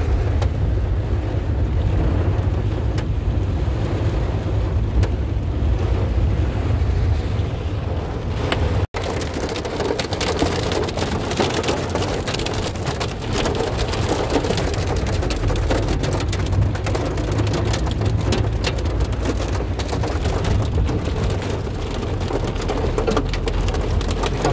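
Wind rushing over the microphone on a moving motorcycle, a steady rumbling hiss that cuts out for an instant about nine seconds in and is more crackly after.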